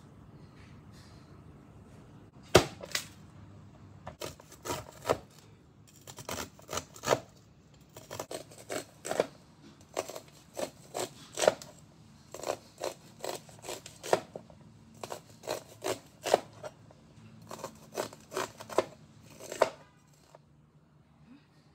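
Kitchen knife cutting the kernels off fresh sweet corn cobs on a cutting board: a long run of sharp knocks and scrapes, one or two a second, starting a couple of seconds in and stopping near the end.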